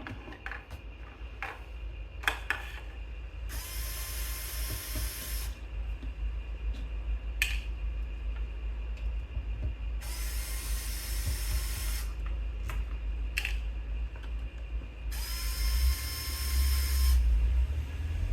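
Electric screwdriver backing out a laptop's bottom-cover screws: three short runs of about two seconds each, with light clicks of the bit and screws between them, over a low hum.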